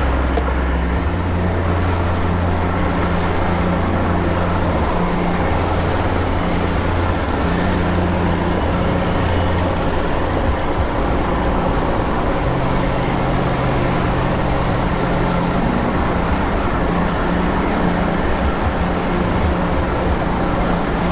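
Boat's outboard motor running steadily at trolling speed, a low hum that shifts slightly in pitch now and then, over the rush of water from the wake and wind.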